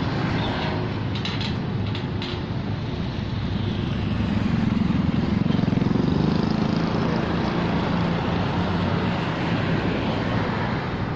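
Steady rumble of road traffic that swells for a few seconds midway as a vehicle passes, with a few faint clicks a second or two in.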